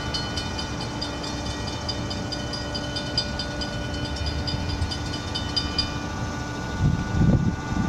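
CSX freight train moving slowly, with a steady rumble, a few steady high tones and a rapid high ticking of about five a second that stops about six seconds in. The low rumble swells near the end.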